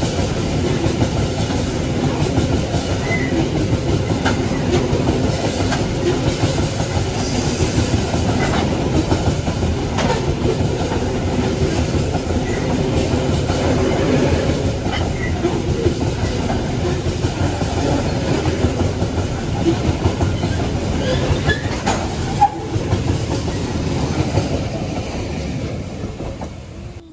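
A coal freight train running on jointed track, its wagon wheels clattering steadily over the rail joints with occasional metallic clanks. The sound dies away near the end.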